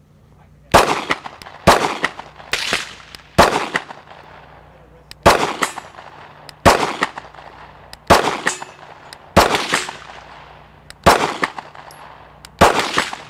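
Ten single shots from a semi-automatic handgun, fired at a slow, steady pace of about one every second to second and a half, each followed by a short echo.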